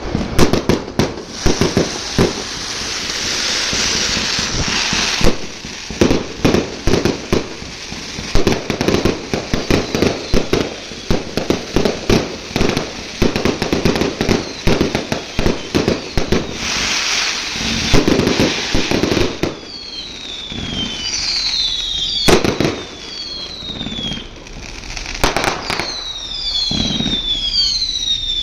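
Fireworks going off in rapid volleys of bangs and crackles, with stretches of hissing. From about twenty seconds in, short whistles falling in pitch sound among the bangs.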